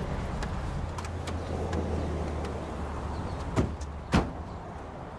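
Porsche 944 Cabriolet's engine idling with a low steady hum, then two car doors shut with sharp thuds about half a second apart, the second the louder; the hum fades after the second door.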